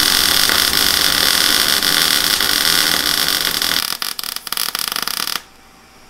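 Wire-feed welder arc laying a bead on steel: a steady crackling that breaks into short sputtering bursts about four seconds in and stops about a second later.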